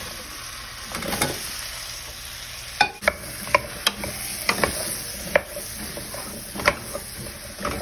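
Ash gourd cubes being tipped into a hot stainless steel pot of sautéed spices and stirred with a wooden spatula: a steady sizzle, with a run of sharp knocks of the spatula against the pot from about three seconds in.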